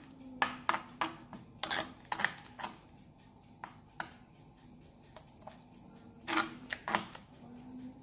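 Metal spoon scraping and clinking against the glazed clay base of a tagine while a wet spice paste is stirred: irregular sharp clicks in clusters during the first three seconds and again around six to seven seconds in, with a quieter stretch between.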